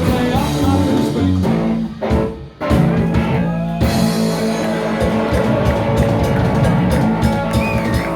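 Live rock band playing, with guitar and drums, that drops out for a short break about two seconds in and then comes straight back in.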